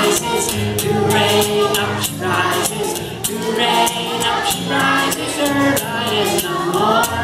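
A children's song playing: singing over held bass notes with a steady beat of shaken percussion.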